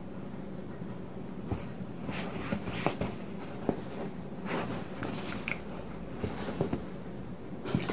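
Small dog and kitten scuffling on a bed: bedding rustling, with scattered light taps and thumps as they tussle.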